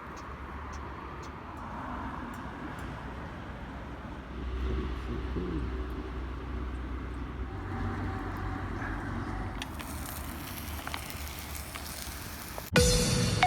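Outdoor ambience: a low, steady rumble with faint scattered ticks. Near the end, marimba-like music starts abruptly.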